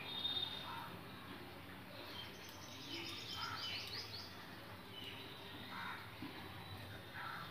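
Birds chirping in the background: scattered short chirps and, about two and a half seconds in, a quick run of repeated high notes lasting about a second and a half.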